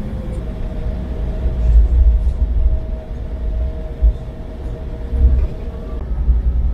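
Cabin noise inside an Embraer 175 airliner taxiing: a steady hum from its CF34 jet engines over a heavy low rumble, with a few brief low thumps. The engine tone shifts slightly near the end.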